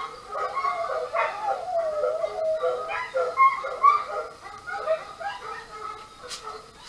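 Animal whining and yipping cries, rising and falling in pitch in long wavering glides broken by short yelps.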